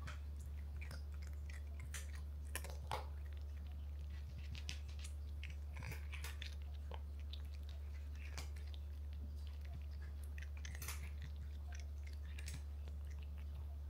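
Domestic cat chewing crunchy cat treats: a scatter of small, crisp crunches, the two sharpest about three seconds in, over a steady low hum.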